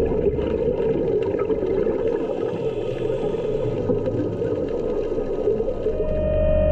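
Underwater rumble and gurgle of a scuba diver's exhaled regulator bubbles, heard through the camera housing. A steady hum comes back near the end.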